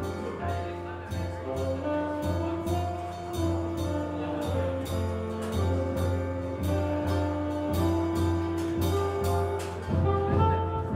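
Small jazz group playing live, with double bass, piano and drums and a steady cymbal beat keeping time. Pitched melody notes are held above a pulsing bass line.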